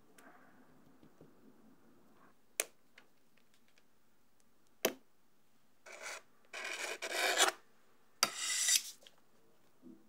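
Metal palette knife scraped across the rim of a stainless steel cake ring, levelling mousse in the mold, in three scraping strokes in the second half, the last two loudest. Two sharp taps come before the scraping.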